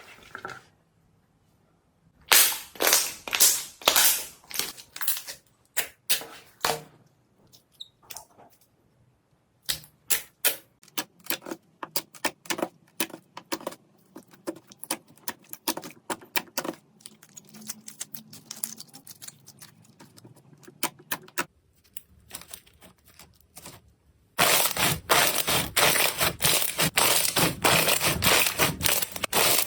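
Slime worked by hand, making sharp clicking and popping sounds in irregular bursts, with short quiet gaps between them. Near the end it becomes a dense, loud, continuous crackling.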